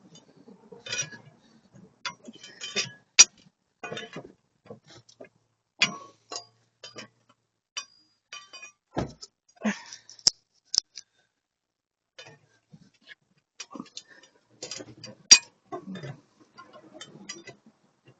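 Irregular metal clicks, clinks and knocks of tire-changing work, tools and wheel hardware being handled, with a sharp louder knock about three seconds in and again about fifteen seconds in.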